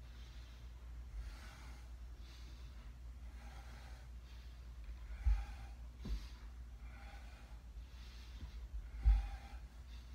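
A man breathing audibly and steadily in and out, about one breath sound a second, while holding a deep lunge stretch. Two soft low thumps come about five and nine seconds in.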